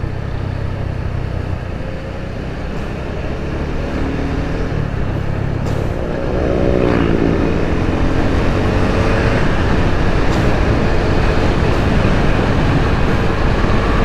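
Suzuki Gixxer 250's single-cylinder engine running while riding, over a steady haze of wind and road noise. Its pitch climbs about six seconds in, drops sharply about a second later, and then runs louder.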